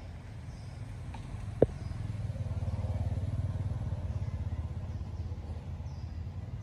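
A motor vehicle engine running with a low, fast-pulsing rumble that swells about two seconds in and eases off toward the end. A single short, sharp click sounds about one and a half seconds in.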